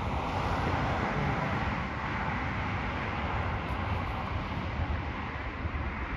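Jet airliner's engines running at high power: a steady, even rushing noise with a low rumble underneath.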